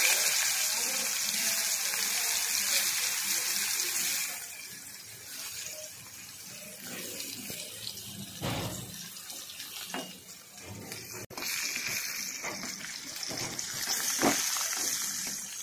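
Round slices of green gourd sizzling in hot oil in a kadai. The sizzle is loud for the first four seconds, drops back, and swells again about twelve seconds in, with a few light knocks in between.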